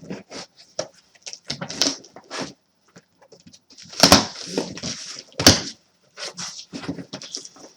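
Cardboard box and its packaging being opened by hand: irregular rustling and tearing, with two louder bursts about four and five and a half seconds in.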